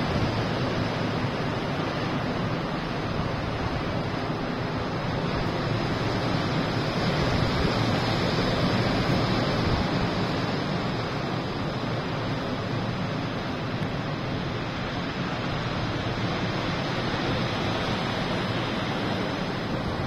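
Black Sea surf after a storm: waves breaking and washing up a sandy beach in a steady rushing noise that swells a little and falls back.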